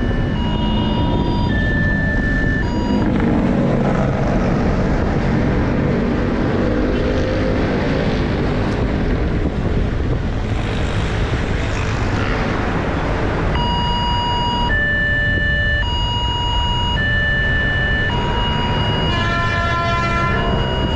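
Electronic level-crossing alarm ringing in alternating two-tone chimes about once a second, over the rumble of a passing passenger train. The alarm stops for about ten seconds and starts again. Near the end an approaching electric commuter train sounds its horn briefly.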